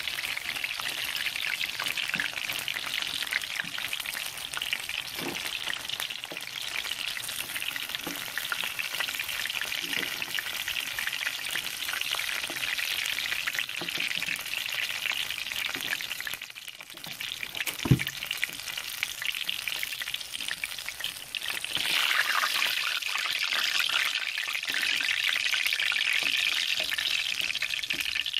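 Battered stuffed tofu deep-frying in hot oil in a wok: a steady crackling sizzle, with a wooden spatula stirring and turning the pieces. One sharp knock comes about eighteen seconds in, and the sizzle is louder for the last several seconds.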